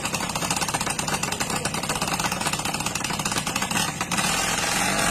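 Small motorcycle engines idling with a rapid, even putter, getting a little louder about four seconds in.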